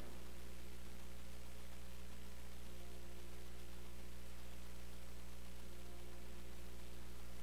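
Steady electrical mains hum with a faint hiss in the audio feed, a low buzz with a few higher overtone tones, unchanging throughout.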